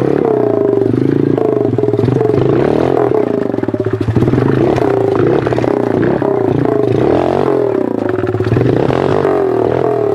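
A 110cc four-stroke pit bike engine revving, its pitch rising and falling as the throttle is worked over a rough trail. There is a brief dip in the engine with some knocks about four seconds in.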